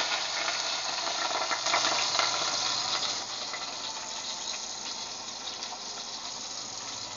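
Sliced onion sizzling in hot oil in a pot: a steady frying hiss with small crackles that eases off gradually.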